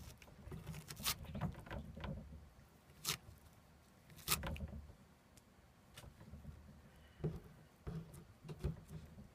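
A tabby cat gnawing and tearing at the torn paper and splintered wooden frame edge of a papered sliding door, making irregular crunches and crackles, about one a second.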